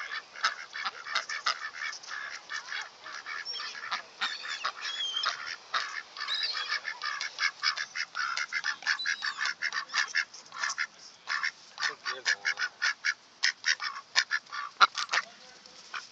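A crowded flock of ducks and American coots (mud hens) calling at close range, many short calls overlapping without a break.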